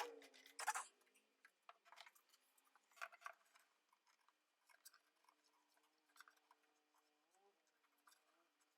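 Near silence: faint scattered clicks and ticks over a faint steady hum.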